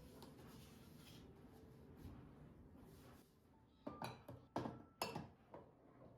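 Kitchenware being handled: a quick run of about five sharp clinks and knocks with a short ring after each, about four seconds in, after a few seconds of faint hiss.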